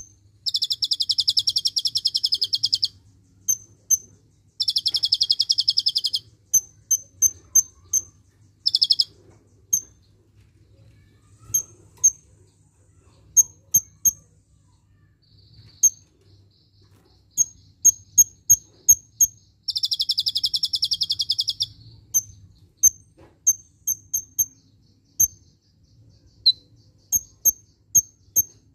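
Caged kolibri ninja sunbird singing: sharp, high chips, alone or in quick runs, broken by a few rapid buzzy trills of about two seconds each, the cililin-style 'tembakan' (shot) phrases worked into its song.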